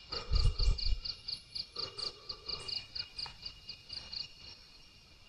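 Night chorus of insects and frogs: a rapid, even chirp about four to five times a second that stops near the end, over a steady high drone. A few low thumps come in the first second.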